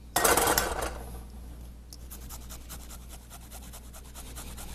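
Peeled fresh ginger root grated on a small handheld metal grater: a louder rasping scrape in the first second, then quick, even scraping strokes, about five a second.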